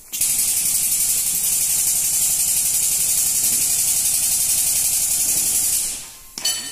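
Compressed air hissing steadily from an air hose for about six seconds, starting suddenly and then fading out. A brief metallic clang rings near the end.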